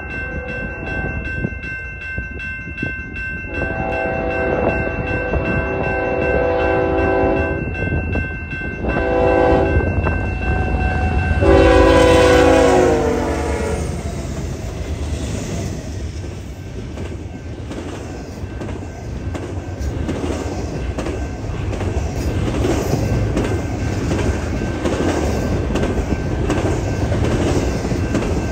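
Train horn sounding four blasts, long, long, short, long, the pattern used for a grade crossing. The last blast drops in pitch as the locomotive passes, and the train's cars follow, rumbling with a rhythmic clickety-clack of wheels over rail joints.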